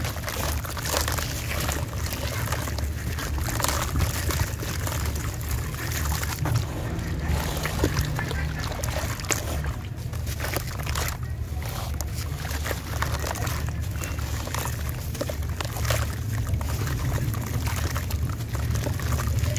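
A sand-cement slab crumbled by hand over a plastic tub of water: a steady gritty crunching and crackling as chunks break off, with sand pouring and splashing into the water. A steady low rumble runs underneath.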